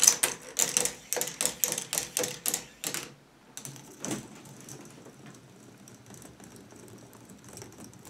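A plastic ball running down a K'NEX ball-machine track. For about three seconds there is a quick series of sharp clacks, about four a second, as it works down the zigzag. After that comes a quieter, steady rolling rattle as it circles the spiral vortex.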